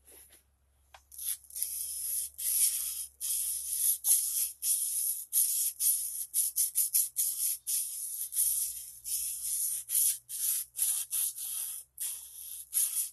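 An axe's bevel being stroked over sandpaper to sharpen the edge: a quick, uneven series of scratchy strokes that starts about a second in.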